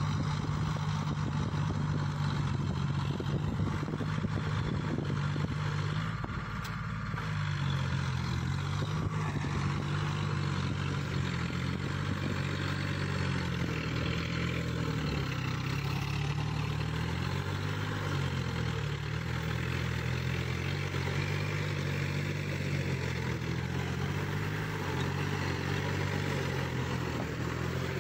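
Tractor engine running steadily under load while ploughing a field, its pitch shifting a little as the load changes, with a short dip in level about six seconds in.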